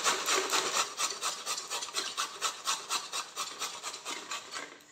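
Peeled gourd grated on a stainless-steel box grater: quick, even back-and-forth scraping strokes, about four a second, fading out near the end.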